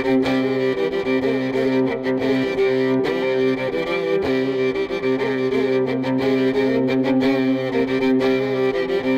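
Bowed strings playing a melody over a steady held low drone note.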